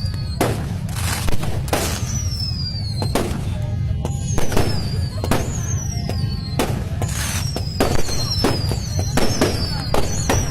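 Fireworks going off in quick succession, sharp bangs about one or two a second, with repeated high whistles that fall in pitch, over a steady low rumble.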